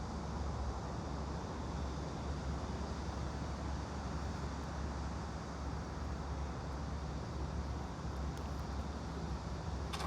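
Steady café background ambience used as white noise: an even hiss over a low hum, with a brief clink right at the end.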